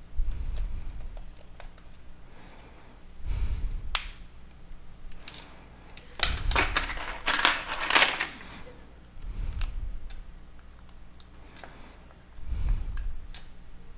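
Small clicks and taps of a smartphone being taken apart: small screws being undone from the plastic housing and set down. There are dull knocks about every three seconds and a dense run of sharp clicks a little past the middle.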